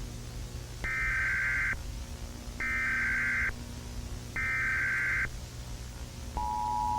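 Emergency Alert System SAME header: three identical bursts of buzzing digital data tones, each just under a second long, about a second apart. About six seconds in, the steady two-tone EAS attention signal begins.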